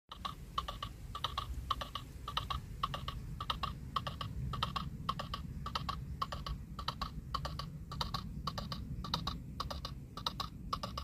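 Clip-clop of horse hooves walking, a steady run of about three to four hollow knocks a second in loose pairs, over a low steady rumble.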